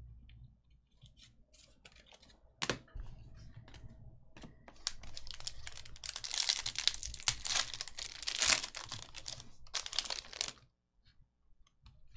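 Trading card pack wrappers being torn open and crinkled. A single sharp click comes about three seconds in, then several seconds of dense tearing and crinkling that stops abruptly near the end.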